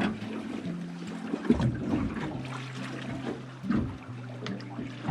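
Background music with sustained low notes that change every second or so, over faint boat and water noise with a few light knocks.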